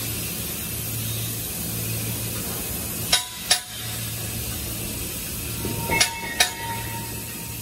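Steady low hum of workshop machinery with two pairs of sharp metal clinks, one about three seconds in and the other around six seconds, each clink ringing briefly.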